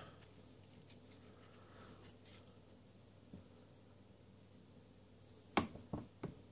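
Quiet handling of a stack of trading cards shuffled between the hands: faint rustling, a soft tick about three seconds in, and three sharp clicks of card edges near the end.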